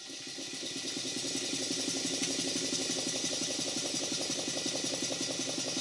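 Large twin-cylinder model steam engine running on compressed air. It grows louder over the first two seconds, then settles into a fast, even beat of exhaust puffs over a steady hiss of air.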